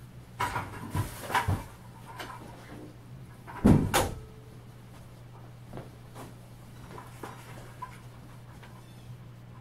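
Household knocks and clunks: several in the first second and a half, one loud thump about four seconds in, then faint scattered ticks, over a steady low hum.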